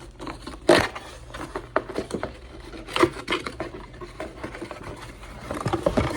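A plastic smoke detector and its cardboard box being handled during unboxing: irregular scrapes, rustles and light knocks. The loudest knocks come about a second in and again around three seconds in.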